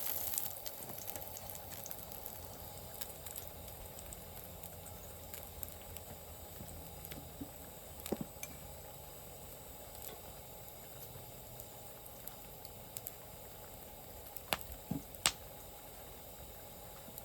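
Wood fire in a small fire pit crackling over a faint steady hiss, with a few sharper pops or clicks about eight seconds in and again near the end.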